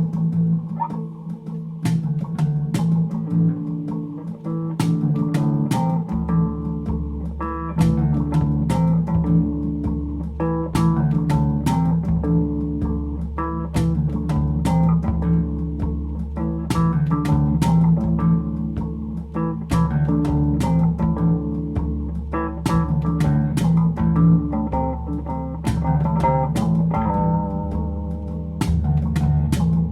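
Background music: plucked guitar over a steady beat, with a bass guitar line coming in about six seconds in.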